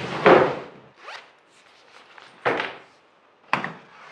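A zipper pulled on a soft track bag, then two sharp plastic clacks as the latches of a hard-shell tool storage case are worked.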